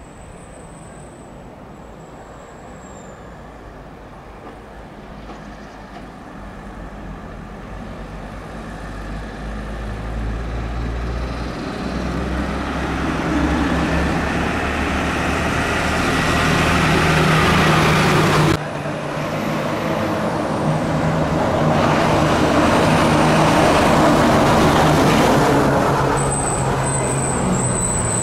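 Diesel engine of a Mercedes-Benz 917 fire engine approaching at low speed, with road noise, growing steadily louder as it nears. There is a sudden break about two-thirds of the way through.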